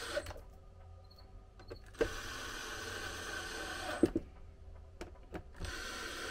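Ryobi cordless drill driving screws into a TV's mount plate, running in short steady bursts: a brief one at the start, a run of about two seconds about two seconds in, and another near the end, with a few clicks between.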